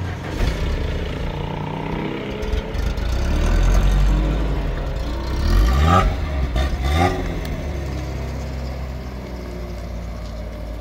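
A vehicle engine running, with two short rising revs about five and a half and six and a half seconds in.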